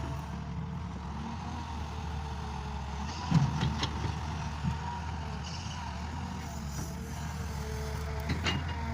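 Tractor engine running at a steady speed while working the field, with a sharp knock about three seconds in and another near the end.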